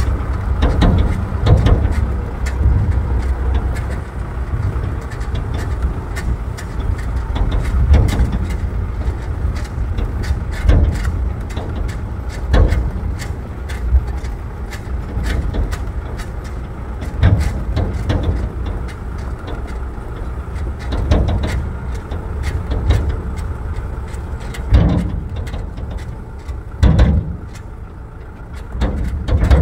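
Vehicle travelling over a rough, bumpy road: a steady low rumble broken by irregular jolts and knocks every second or few.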